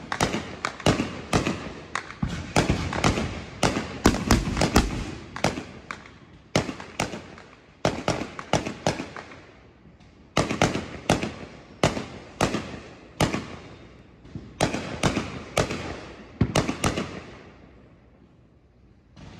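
Neighbourhood fireworks going off in rapid volleys of sharp bangs and crackles, each report trailing off in an echo. The volleys ease briefly a little before halfway and fade to a lull near the end.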